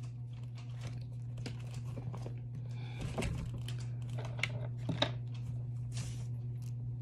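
A Bible's thin pages rustling as it is handled and shut, with soft papery rustles and small knocks scattered throughout, a few louder ones about three to five seconds in. A steady low hum sits underneath.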